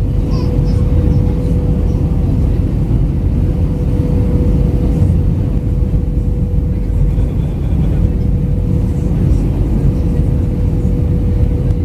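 Steady low cabin roar inside an Airbus A319-112 from engine and airflow noise, with a constant hum near 500 Hz.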